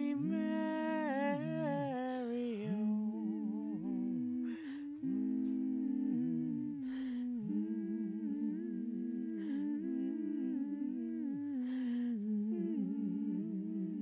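A woman humming a cappella, several layered parts of her own voice overlapping as a round, with held notes and a slight vibrato.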